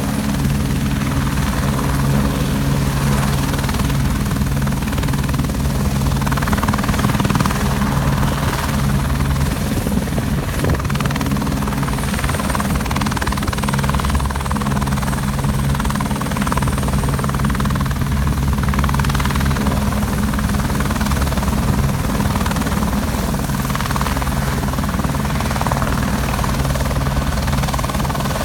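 Helicopter running close by, a loud steady rotor and engine sound that holds without a break.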